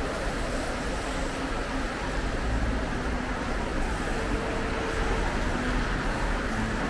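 Steady road traffic noise, with a deep rumble underneath.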